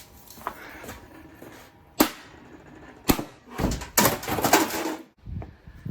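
Hard wooden knocks as a thrown wooden mallet strikes: single sharp knocks about two and three seconds in, then a rapid clatter of knocks lasting about a second.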